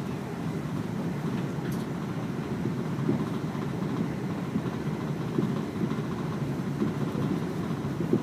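Passenger train running along the track: a steady low rumble with a few faint knocks from the wheels over the rails.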